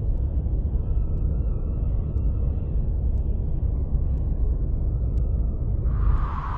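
A loud, steady low rumble of noise, with a higher hiss coming in near the end.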